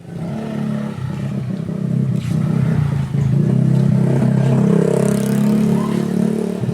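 An engine running steadily, its pitch rising a little about halfway through.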